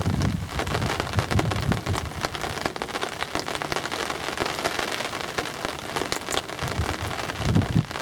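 Steady patter of rain, a dense crackle of drops, with low wind rumbles on the microphone near the start and near the end.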